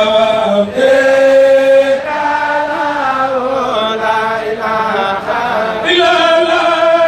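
Unaccompanied male chanting of an Arabic religious poem, a Mouride khassaid, sung in long held notes that glide slowly from one pitch to the next.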